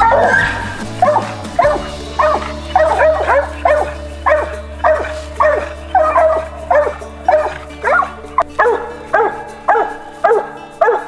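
A hunting dog barking steadily and repeatedly, about two to three barks a second, over background music.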